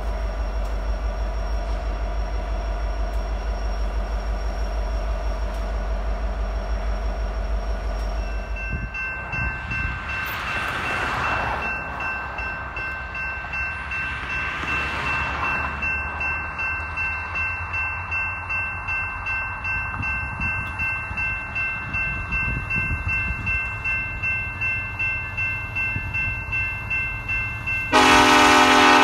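BNSF diesel freight locomotives rumble steadily past. After a cut, a railroad grade-crossing warning bell rings in a steady pulse as its gates lower for an approaching freight train, and about a second before the end the train's air horn sounds loudly.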